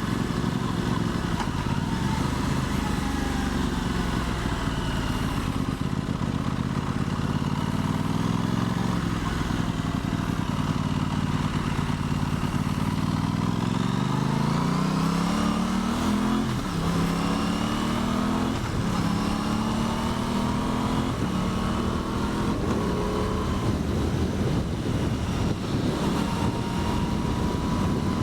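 Aprilia Tuono 660's parallel-twin engine under way. It runs steadily at first, then the revs climb about halfway through, with three quick upshifts in a row before it settles, over steady wind rush.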